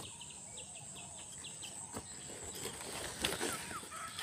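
A landed snakehead fish flopping and thrashing on grass and soil, giving a few sharp rustling knocks about two and three seconds in. A bird chirps a quick run of short high notes in the first second, over a steady high hiss.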